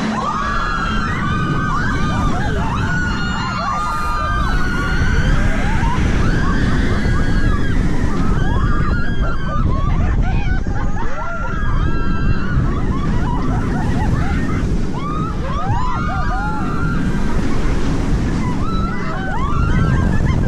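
Wind rushing hard over the microphone on the Voltron Nevera roller coaster in motion, with riders screaming and yelling over it throughout.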